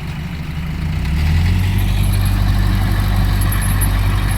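Diesel engine of heavy earthmoving machinery running, growing louder about a second in and then holding steady.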